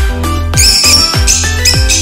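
Electronic background music with a steady kick-drum beat, about two beats a second, under sustained synth notes.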